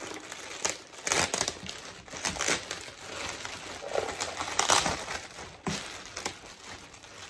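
Clear plastic bagging crinkling in irregular bursts as hands pull it open and unwrap it.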